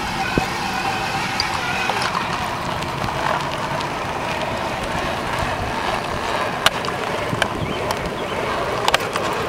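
Wind buffeting the microphone, a steady rushing noise, with a few sharp clicks standing out, the loudest about two-thirds through and near the end.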